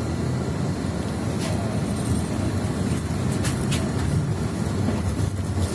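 Cabin noise inside a moving passenger van: a steady engine and road rumble, with a few light rattles.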